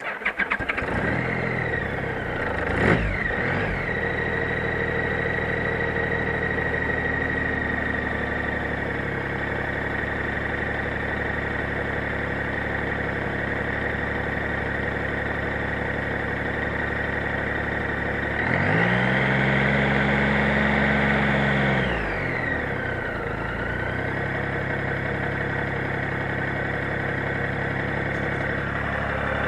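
Honda Gold Wing GL1800's flat-six engine catching and settling to a steady idle. It gets a quick blip of the throttle about three seconds in, and later is held at higher revs for about three seconds before dropping back to idle.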